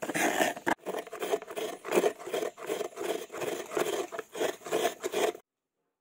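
Coconut being grated: rhythmic rasping scrapes, about two strokes a second, that stop abruptly near the end.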